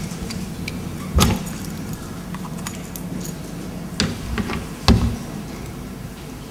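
Handling noise at a lectern as a laptop is set up: scattered clicks and knocks, with two louder thumps about a second in and near five seconds, picked up through the lectern microphone over a steady low hum.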